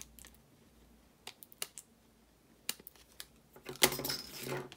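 Scissors snipping through thin card, a few light clicks, then a louder clatter with some rustling near the end as the scissors are laid down on the work mat and the paper box is handled.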